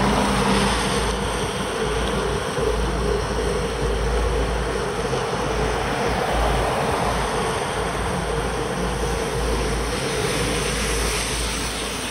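Riding noise from a bicycle on wet asphalt: wind rushing over a bike-mounted camera's microphone, with steady tyre hiss on the wet road and a low, uneven buffeting underneath.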